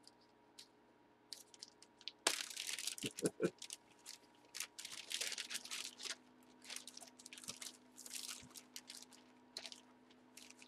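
Clear plastic bag crinkling and rustling in irregular bursts as a packaged jersey card is handled, starting about two seconds in, with scattered light clicks.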